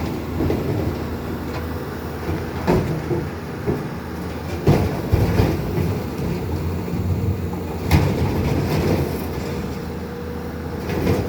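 Heavy farm machinery running steadily, with a low engine drone and sharp metallic clanks, the loudest two about five and eight seconds in.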